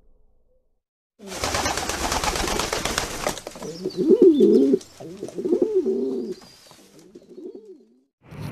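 A pigeon cooing in several low phrases that rise and fall, after about two seconds of loud hissing, rustling noise.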